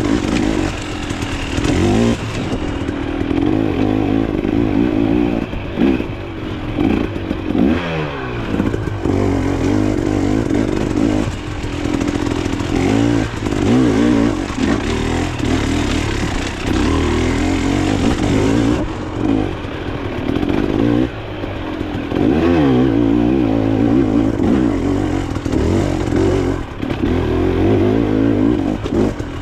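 Dirt bike engine being ridden hard off-road, revving up and dropping back again and again as the throttle is opened and closed, with brief dips every few seconds and some rattling from the bike.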